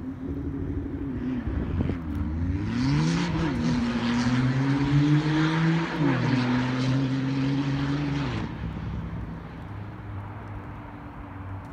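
A motor vehicle passing, with a hiss as it goes by. The engine's pitch rises, then drops suddenly about six seconds in and holds lower, like a gear change, before the sound fades.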